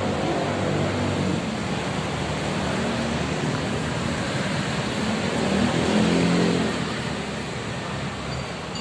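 Steady road traffic noise, with a motor vehicle's engine swelling and fading as it passes about six seconds in.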